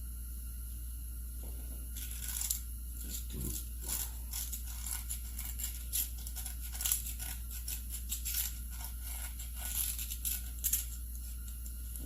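Irregular short scraping strokes against the bottom of a McCulloch SP81 chainsaw's magnesium gas tank, cleaning off crud, starting about two seconds in, over a steady low hum.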